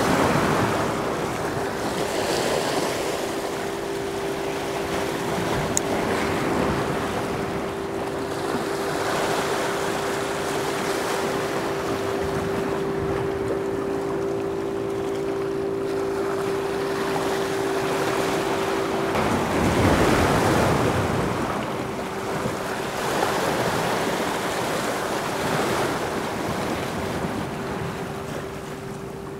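Wind and water noise on the microphone, with a steady hum running through it that drops out for a couple of seconds about two-thirds of the way in, while the noise swells louder.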